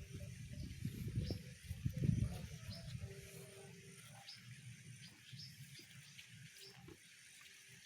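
Rural outdoor ambience: a steady high hiss of insects, with short high chirps repeating about once a second. Low rumbling on the microphone during the first couple of seconds.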